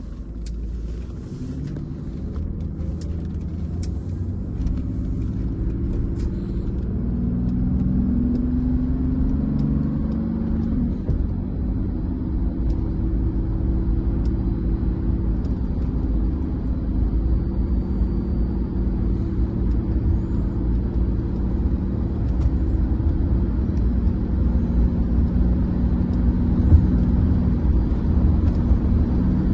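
Mercedes-Benz 300SDL's turbodiesel straight-six heard from inside the cabin, its note rising in steps as the car accelerates over the first ten seconds or so, then cruising steadily under a low road rumble. A single brief knock near the end.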